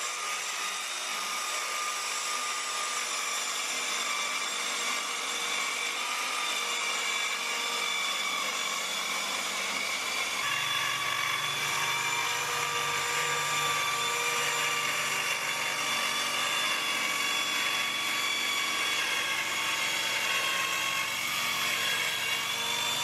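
TackLife 4-inch corded mini circular saw with a 24-tooth blade cutting a long line through plywood: a steady, high motor whine over the noise of the blade in the wood. About halfway through, a lower hum joins in.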